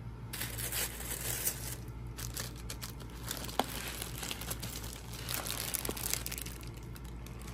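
Clear plastic bag crinkling irregularly as hands handle boots wrapped in it, with one sharp tick about three and a half seconds in.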